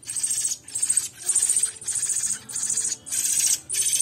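Hand-reared sabiá thrush nestlings giving shrill, rapid begging calls in a run of about six short bursts, the sign of hungry chicks asking to be fed.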